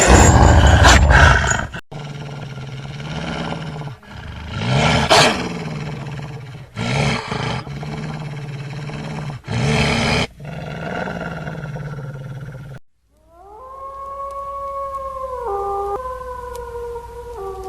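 Wolves growling and snarling in several loud bursts over a low steady rumble. After a brief pause, a wolf howls in one long call that drops in pitch in two steps.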